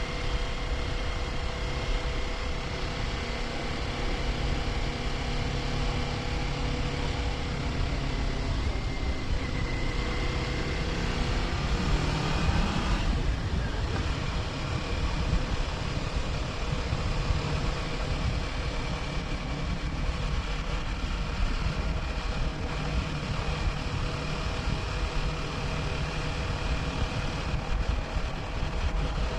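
Kawasaki Ninja 400's parallel-twin engine running under way, with wind and road rush. About twelve seconds in, the engine note climbs and then drops back, settling to a steady note again.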